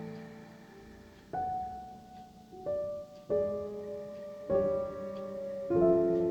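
Slow, gentle piano music: five soft chords struck roughly a second apart, each left to ring and fade.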